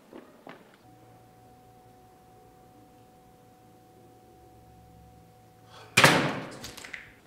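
Faint steady room hum, then about six seconds in a sudden loud burst of noise that dies away over about a second.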